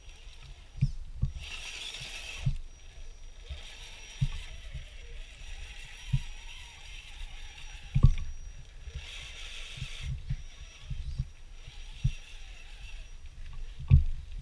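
Scale RC crawler's electric motor and gears whirring in short throttle bursts as the truck climbs over rocks, with irregular dull low thumps, two of them louder, about eight seconds in and near the end.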